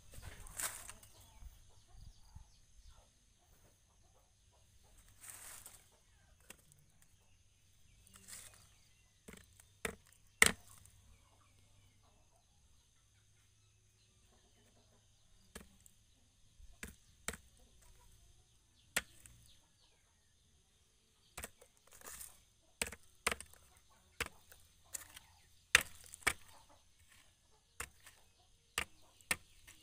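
Sparse sharp clicks and knocks, a couple of dozen spread unevenly, the loudest about ten seconds in and more crowded together in the second half, over a faint steady high tone.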